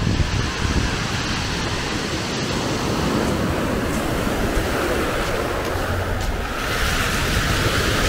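Sea waves breaking and washing on the shore in a steady rush, with a louder high hiss setting in about six and a half seconds in.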